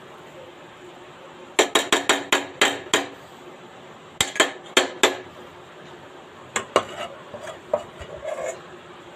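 A metal spoon clinking and scraping against steel cookware in quick runs of sharp clinks, about two seconds in, again around four seconds, and a few more near seven seconds. It is the sound of cooking masala being scraped out so that none is left behind.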